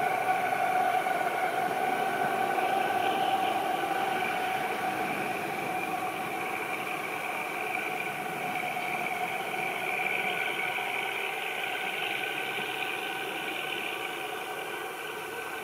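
ZDM-3 narrow-gauge diesel-hydraulic locomotive and its train running slowly past: a steady engine drone with a high whine on top, slowly fading as it moves away.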